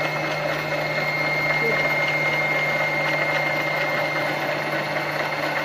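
Singer Promise 1409 sewing machine's motor running at a steady speed under the foot pedal, winding thread onto a bobbin on the machine's top bobbin winder: a steady hum with a thin high whine.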